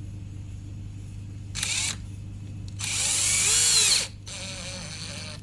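Electric power drill run in three short bursts, its motor pitch rising and falling as the trigger is squeezed and eased. The middle burst is the longest and loudest.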